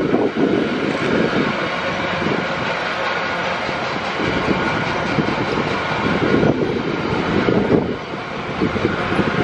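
Freight wagons, flatcars loaded with steel coils, rolling past close by: a steady rumble of steel wheels on rail, with frequent short clicks and knocks as the wheels pass over the track.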